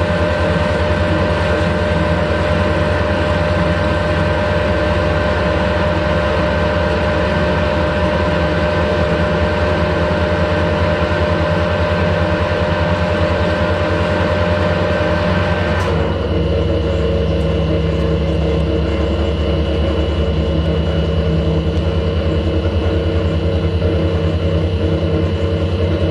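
Harrison lathe running with its chuck spinning while an insert-tipped tool turns a steel pin: a steady machine hum carrying several fixed tones. About sixteen seconds in the sound changes, as one high tone drops out and a higher one comes in.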